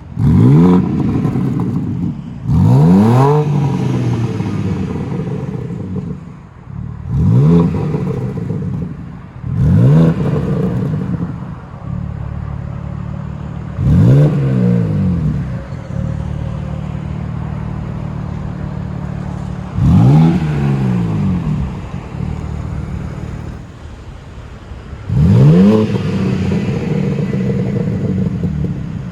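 BMW M3/M4 Competition's twin-turbo straight-six being free-revved at standstill, heard through its exhaust. There are about seven short blips of the throttle, each sweeping sharply up and back down, and the engine settles to a steady idle between them.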